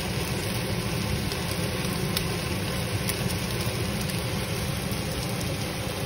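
Marinated chicken breasts sizzling in a ribbed grill pan, a steady hiss with small spatter pops over a constant low hum.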